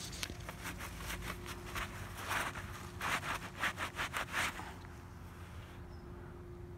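Cloth rag rubbing up and down the thin trunk of a young Meyer lemon tree in quick strokes, several a second, scrubbing scale insects off the freshly sprayed bark. The strokes fade out a little past the middle.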